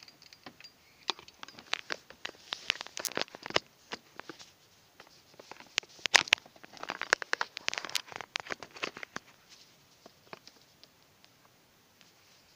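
Hands handling small hard objects, probably plastic parts: irregular sharp clicks and short rattles in two busy spells, thinning to a few ticks near the end.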